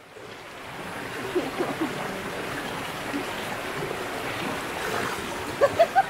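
River water flowing: a steady rushing noise.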